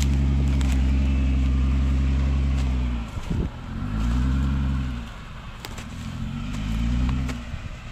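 Jeep Wrangler Rubicon's engine running steadily close by. About three seconds in, after a brief knock, the engine note rises and falls twice as it is throttled up and eased off.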